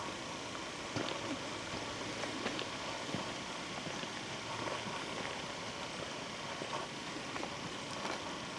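Footsteps crunching on a leaf-littered forest trail, with scattered small crackles, over a steady hiss of wind in the trees.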